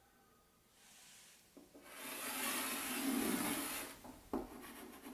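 Chalk on a blackboard drawing a large circle in one continuous scraping stroke of about two seconds, then a sharp tap as the chalk touches down on the board again near the end.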